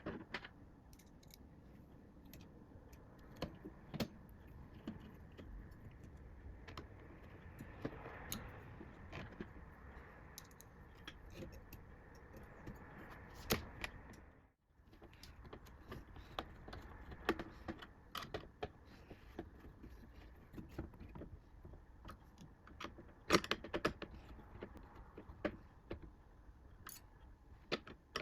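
Scattered light clicks, taps and small metallic clinks of computer parts and screws being handled and fitted during a PC assembly, with a sharper knock now and then.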